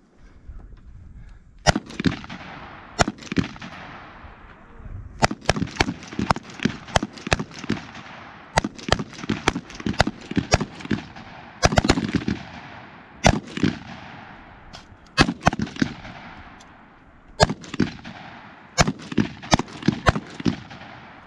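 Rifle fire from several shooters firing at once on an outdoor range: sharp shots at uneven intervals, a few spaced ones at first, then dense overlapping clusters, each shot trailing an echo.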